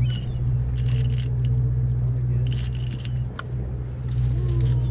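Steady low drone of the sportfishing boat's engine, with two brief hissy scraping sounds, about a second in and again near the middle, and a few light clicks.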